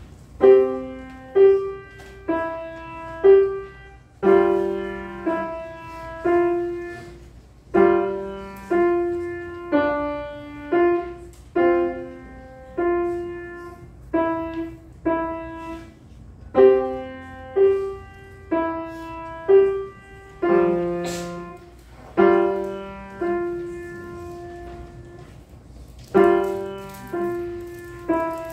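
Grand piano playing a melody over chords in short phrases with brief pauses, starting about half a second in.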